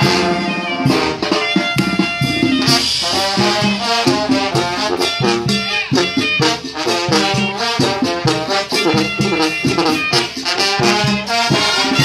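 A Mexican brass banda playing live: trombones and trumpets carrying the tune over a steady, even drum beat.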